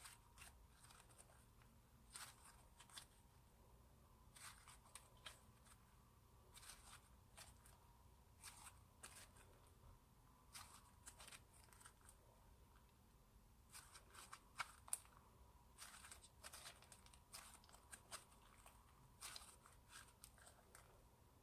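Slime being squished and worked by hand: faint, irregular sticky clicks and small pops, coming in little clusters.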